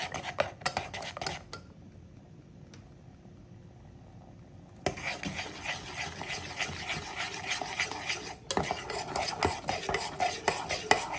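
A small wire whisk stirring and scraping a thickening cornstarch glaze in a small aluminium saucepan, the metal wires rattling against the pan. The stirring stops for about three seconds, then starts again and keeps going.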